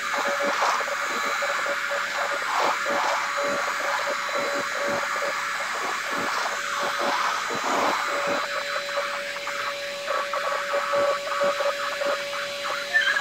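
Handheld vacuum cleaner running with its floor-brush head pushed over a tiled floor: a steady motor whine over the hiss of the airflow, broken by many short, irregular crackles and ticks.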